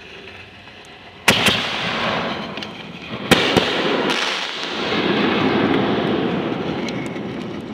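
Aerial firework shells bursting overhead: a sharp bang about a second in, two more bangs about two seconds later, then several seconds of dense crackling as the stars burn out.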